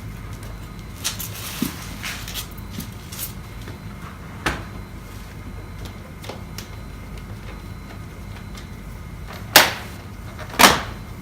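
Plastic motorcycle fairing panel being forced off its mounting pegs and clips: scattered clicks and knocks, then two loud sharp snaps about a second apart near the end as it comes free.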